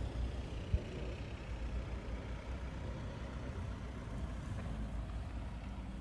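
A car's engine running in the snow, heard as a steady low rumble, with a single short knock just under a second in.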